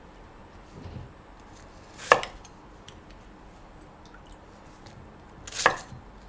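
Kitchen knife chopping a red onion on a wooden cutting board: two sharp chops about three and a half seconds apart, the blade striking the board.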